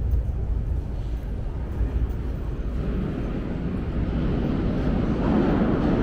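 Metro train rumbling, its rushing noise building steadily louder from about halfway through.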